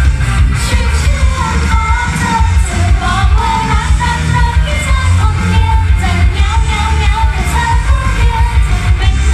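Pop song with female vocals sung into microphones over a backing track with a strong bass beat, played loud through a stage PA.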